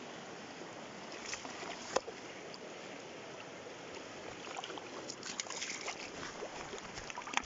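Mountain river water running steadily, with a run of small splashes and clicks in the last few seconds.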